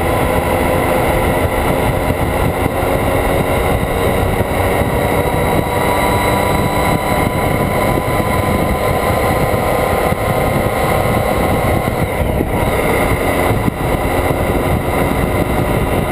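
Motorcycle engine running at a steady highway cruise, heard from a camera mounted on the bike, under a heavy, even rush of wind and road noise.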